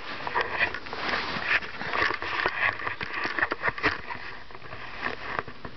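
Close, irregular rustling and scuffing from hands and a handheld camera being moved about, a run of short uneven scrapes and clicks.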